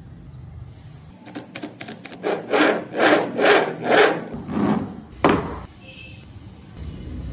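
Carved wooden wheels of a model Jeep chassis rolling back and forth on a tabletop under a hand, rumbling in about five swells roughly two a second after a few light clicks, then a sharp wooden knock.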